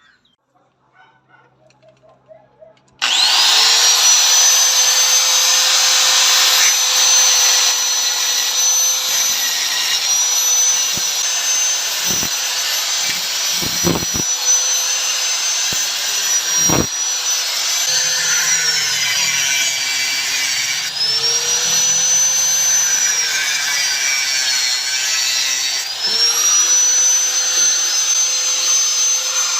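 An electric power tool switches on about three seconds in and runs loud and steady, its whine dropping in pitch and recovering a few times as it is loaded, as when cutting. A few short knocks sound around the middle.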